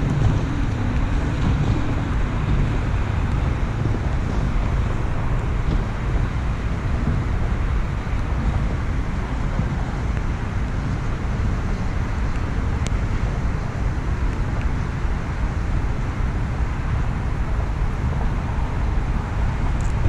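Steady wind noise on the microphone: a low, even rush with no distinct events.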